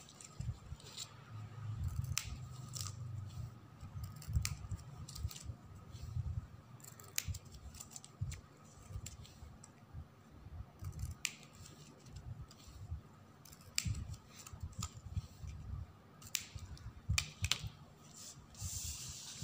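Scissors snipping off the surplus ends of thin ribbon strips in a run of irregular, sharp snips, with low handling noise from the ribbon and hands between the cuts.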